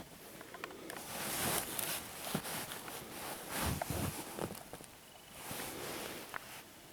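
Hands handling a small digital camcorder: bouts of rubbing and rustling against its plastic body with scattered small clicks from buttons and controls.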